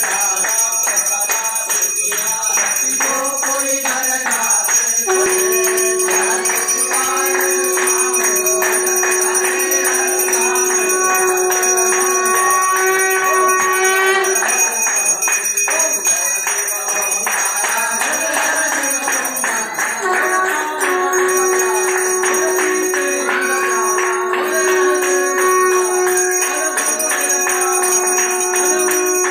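Temple bells ringing rapidly and without pause for the aarti, over music. A long steady note is held for several seconds, stops about halfway through, then comes back.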